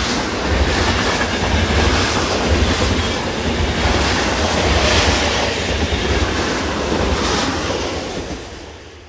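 Miniature ride-on railway train running along its track, a steady rolling clatter of wheels on rails over a low rumble, fading out near the end.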